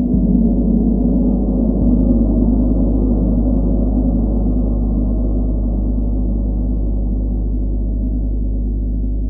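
40-inch chau gong played with a soft felt mallet: a deep, sustained wash of tone, swelling with soft strokes at the start and again about two seconds in, then slowly fading.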